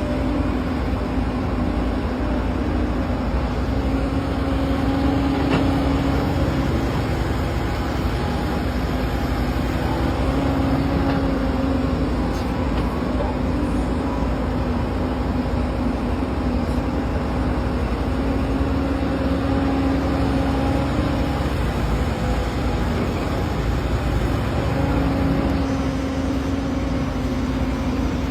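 Motor vehicle running steadily: a constant engine drone with a low hum over even road noise, with no change in pitch or speed.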